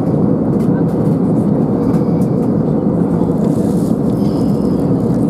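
Steady, even cabin noise of a jet airliner in flight, heard from inside the cabin, with a few faint ticks.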